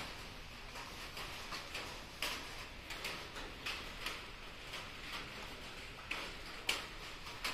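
Footsteps on a hard floor: irregular soft clicks, about one every half second to a second, with the sharpest one near the end, over a low steady hiss.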